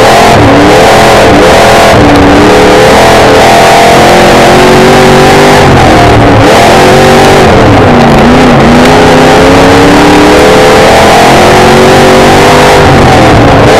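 Street stock race car's engine at racing speed, heard from inside the car: it revs up and falls back several times, its pitch dropping for a moment about half a second, six and eight seconds in before climbing again. Loud enough that the recording is distorted throughout.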